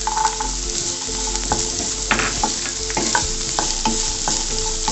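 Vegetables sizzling in hot oil in a nonstick kadai, with a wooden spatula scraping and knocking against the pan as they are stir-fried: a steady hiss with frequent short clicks.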